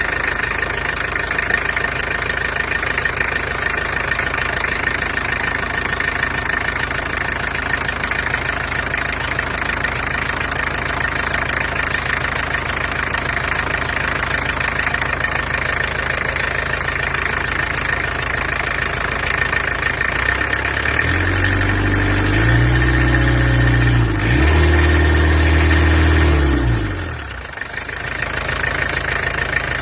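Peugeot XD2 diesel engine with rebored cylinders idling steadily with a knocking diesel clatter, described as quite noisy. About two-thirds of the way through it is revved up and held twice, then drops back to idle.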